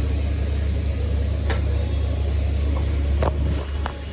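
Steady low rumble of street traffic, with a few brief, fainter sounds over it.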